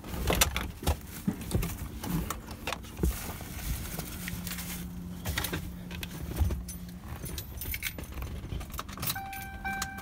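Clicks and light plastic rattles from a 2007 Mercury Grand Marquis power master window switch panel being handled and pressed into place in the door armrest, with a low hum for a few seconds in the middle. A steady electronic tone comes on near the end.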